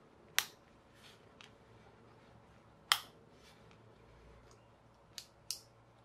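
Sharp plastic cracks and clicks of a 3D-printed PLA gear being snapped off its print raft by hand. There are two loud snaps about two and a half seconds apart, a few fainter clicks between them, and a quick pair of clicks near the end.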